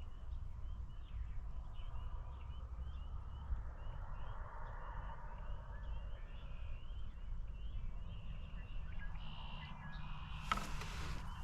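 A chorus of spring peepers, short high peeps repeating in quick succession, over a low rumble. Near the end comes a burst of rustling.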